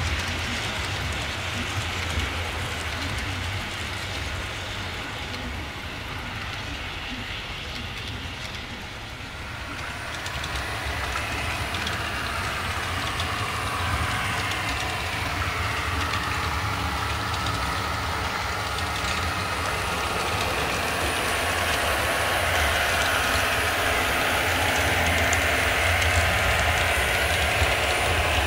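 Model trains running on a layout: motors and wheels rolling along the track over a steady low hum. The sound grows louder from about ten seconds in as the locomotives come nearer.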